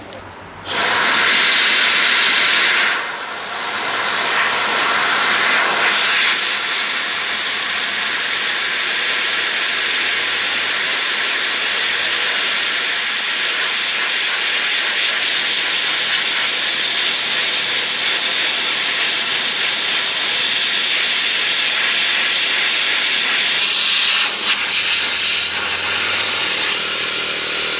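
Sandblaster nozzle blasting abrasive sand with compressed air against a rusted Jeep frame, stripping it toward bare metal for welding: a loud, steady hiss. It starts about a second in and drops off briefly around three seconds, then keeps on.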